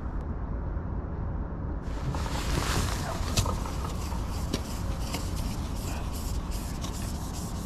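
A steady low rumble, then from about two seconds in a continuous scraping rub with many small clicks.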